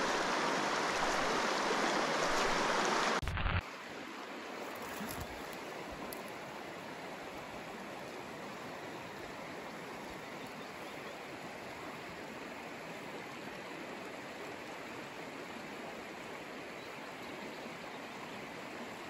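Fast river rapids rushing loudly, then cutting off abruptly about three seconds in to a quieter, steady sound of flowing river water.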